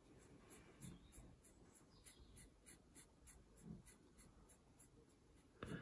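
Faint scratching of a small paintbrush being dry-brushed in short strokes over the side of a plastic model railway coach.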